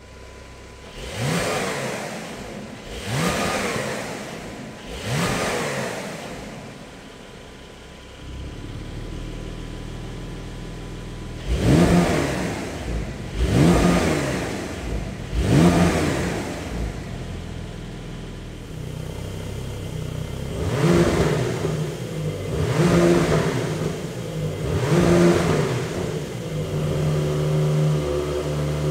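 Porsche 992 Carrera GTS twin-turbo flat-six free-revving at standstill: three quick throttle blips that rise and fall, then a settle to idle, repeated in three sets. The middle set, the loudest, goes through the stock exhaust with its valves open. The last set goes through an Fi Exhaust valvetronic muffler with its valves open.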